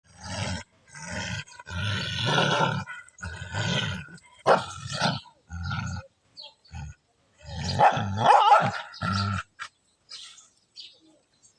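Dog vocalizations in a string of short bouts of about a second each, each one stopping abruptly, with silent gaps between. They stop about two seconds before the end, leaving only faint scattered sounds.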